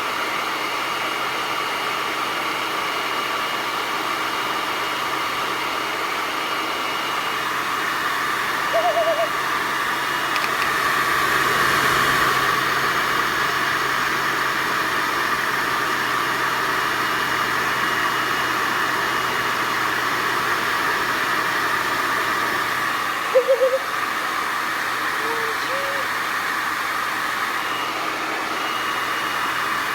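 Hair dryer blowing steadily on a fidget spinner to spin it up, a loud, even rush of air with a faint steady whine on top. A few short pitched sounds break in briefly about a third of the way in and again near the end.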